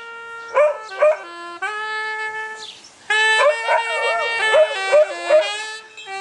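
Clarinet playing long held notes, stepping down and up in pitch, while a dog howls and yips along in short cries that bend up and down in pitch. The dog's cries are loudest soon after the start and again in the second half.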